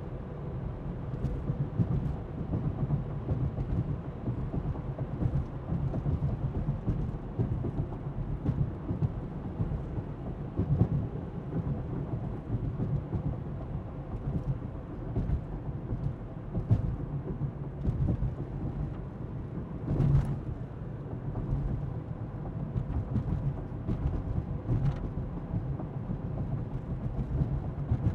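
Car cabin interior while driving: a steady low rumble of tyres on the road and the engine's hum. Occasional light clicks and squeaks come from the suspension, one a little more noticeable about twenty seconds in.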